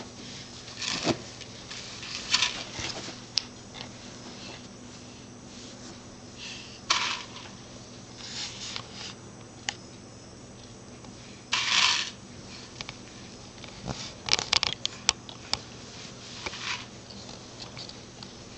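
Scattered light clicks, taps and scrapes of small objects being handled on carpet by a baby, with a few short hissing bursts and a quick cluster of clicks about three quarters of the way through, over a faint steady hum.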